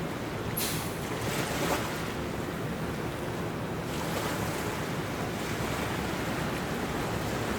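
Harbour ambience: a steady wash of waves with a low rumble underneath, and a brief sharp high-pitched sound about half a second in.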